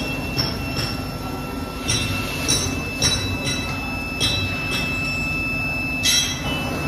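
Induction melting furnace running with a steady hum and a thin, steady high-pitched whine, while pieces of scrap metal are dropped into its crucible with irregular metallic clanks, roughly one a second.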